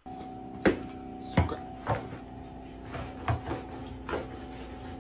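A long mop handle knocking and scraping on the floor and the appliance's edge as it is poked under a fridge, about five sharp knocks, over a steady hum.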